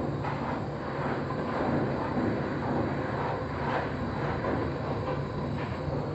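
Handheld butane canister torch burning steadily, its flame heating the end of a PVC sanitary pipe to soften it.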